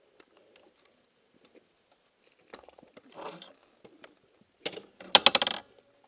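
Handling noise close to the camera: faint scattered clicks and a soft rustle, then a loud burst of rapid clicking and rattling near the end, like a plastic mount or buckle being worked.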